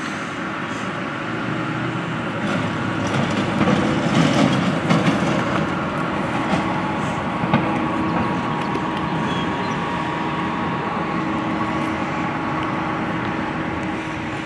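City street traffic: a steady hum of engines and tyres, swelling as a vehicle passes close about four to five seconds in, with a couple of short knocks.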